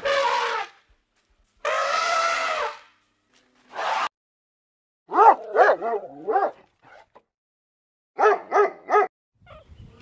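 Dog barking and yelping: a quick run of rising-and-falling yelps around the middle and four short barks near the end, after two longer, noisier animal calls at the start.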